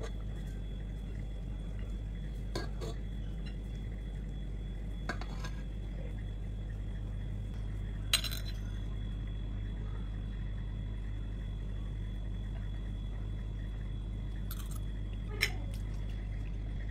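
Steady low hum with a few light clinks of a plate or dish, the loudest about eight seconds in.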